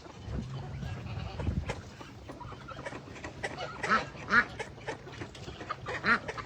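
Domestic ducks quacking in short calls, the loudest a few quacks about four seconds in and one near the end, over a low rumble in the first two seconds.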